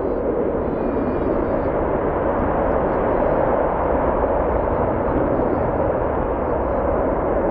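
Twin-engine military jet running at high power on the runway for a takeoff run, a loud steady roar of jet engine noise. Faint bird chirps come through above it.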